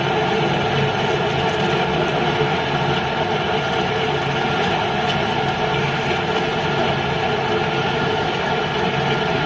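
CNC drilling machine running steadily: a constant mechanical noise with several steady tones of whine held through it.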